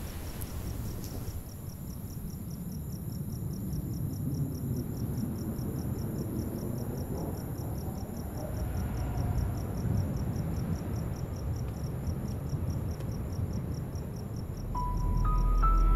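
Crickets chirping in a steady pulsing rhythm over a low rumble. Near the end a deep drone swells and a few rising chime-like notes start the music.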